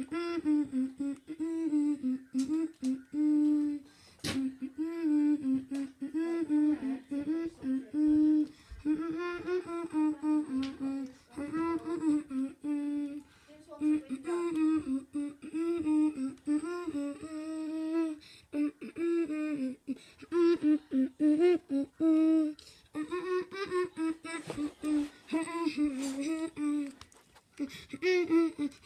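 A person humming a tune without words, in short melodic phrases with brief pauses, with a few clicks in between.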